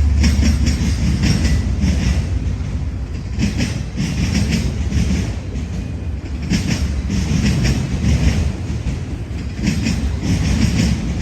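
Freight train cars rolling past, a steady low rumble with groups of sharp wheel clicks as the wheelsets cross rail joints.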